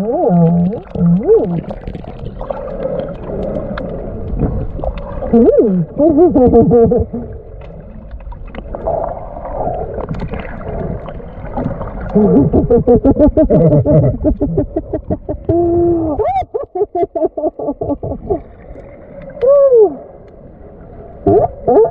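California sea lions calling underwater: moaning calls that rise and fall in pitch, mixed with rapid trains of pulsed barks.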